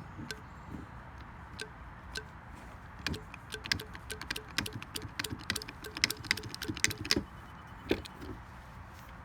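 Rapid, irregular metallic clicks and taps from working a hand-operated hydraulic cable crimper, sparse at first, thickest from about three to seven seconds in, then a few more near the end.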